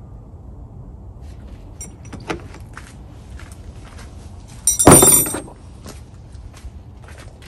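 Metal hand tools clinking, then a loud, short metallic clatter with ringing about five seconds in, as wrenches go into a steel toolbox.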